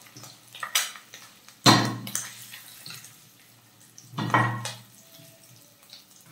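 Wooden spatula knocking and scraping against a nonstick pan and a glass plate as fried boiled eggs are scooped out: three clacks, the loudest a little under two seconds in and another past four seconds.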